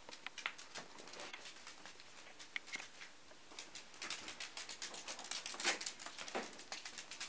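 Yorkshire terrier's claws clicking and pattering on a hardwood floor as it scampers about. The quick, irregular taps come thickest in the second half.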